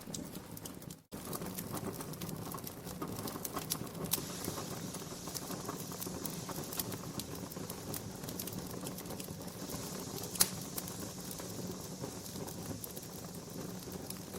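Wood fire crackling, with a constant scatter of small snaps and pops and one louder pop about ten seconds in. The sound drops out briefly about a second in.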